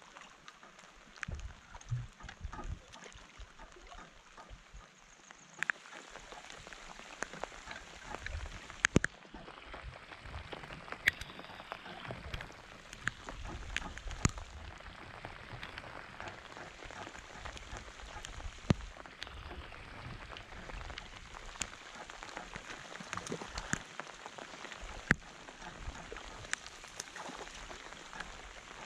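Steady rain falling on the lake surface, with many sharp clicks of close drops scattered through it.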